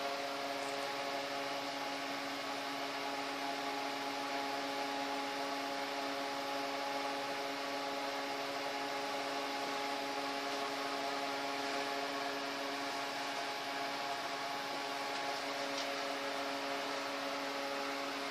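Steady hum of several fixed tones over an even hiss, from a running household machine such as a fan.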